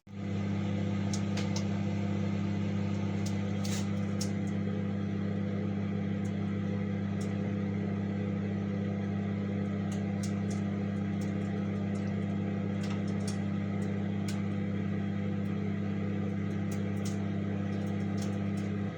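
COMFEE' 700W compact microwave oven running: a steady low hum with scattered faint ticks, stopping abruptly near the end.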